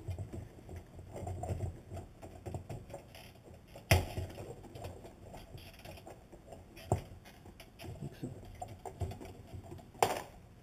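Hands working inside a fuel tank opening, connecting the return lines on a fuel pump bucket: rustling and small plastic clicks, with three sharper clicks about four, seven and ten seconds in.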